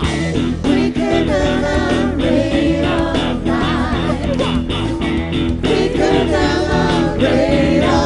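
Background music: a song with singing over guitar, bass and a steady beat.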